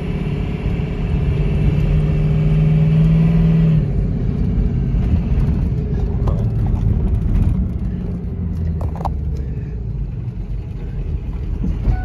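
Ford 6.0 Power Stroke turbo-diesel V8 of a 2003 F450 dump truck pulling the truck along under way, heard from inside the cab. About four seconds in the automatic transmission upshifts and the engine's steady drone drops to a lower rumble.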